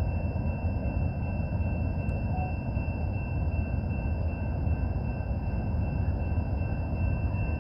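Steady low rumble of an approaching freight train, with faint steady high tones over it.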